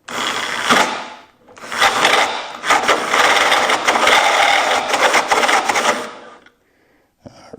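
Power drill running with a reamer cutting into a steel part: a short run, then a longer one of about five seconds that stops well before the end.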